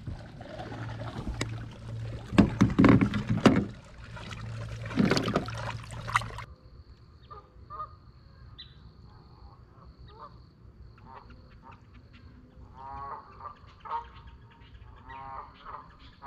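A few loud thumps and rustles over a low steady hum, cutting off suddenly about halfway; then, from about three-quarters of the way in, a goose honking repeatedly in short calls.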